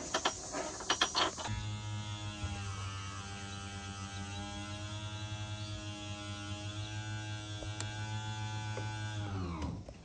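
Electric motor of a race boat's hydraulic trim pump running steadily as the stern drive is moved. It starts after a few clicks about a second and a half in and winds down in pitch as it stops near the end.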